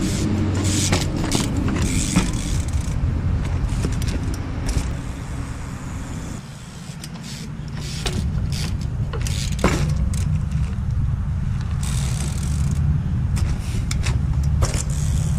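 Wind rumbling on the action camera's microphone, with several sharp knocks as the trials bike's tyres land and hop on the stone wall.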